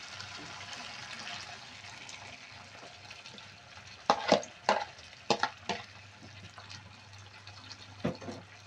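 Sauce poured from a plastic bowl into a pan of chicken livers simmering on low heat: a soft steady pouring and sizzling hiss, then a quick run of sharp clicks and knocks about four seconds in, and one more near the end, as the bowl is emptied. A low steady hum sits underneath.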